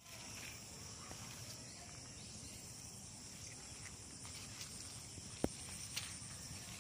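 Outdoor field ambience with a steady high insect chirring, broken by a sharp click about five and a half seconds in and a fainter one just after.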